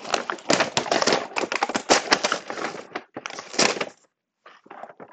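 Takeout food packaging being handled and opened: dense crackling and crinkling for about three seconds, then a shorter burst, a brief pause, and more crackling near the end.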